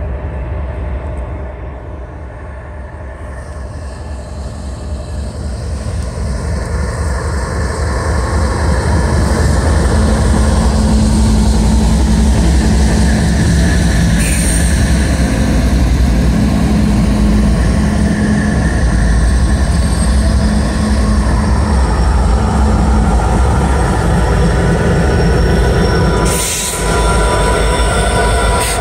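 Canadian Pacific diesel-electric locomotives, led by a GE ES44AC, approaching and passing close by at the head of a freight train. The engine rumble builds over the first ten seconds or so, then holds steady and loud, with a thin high whine in the later part.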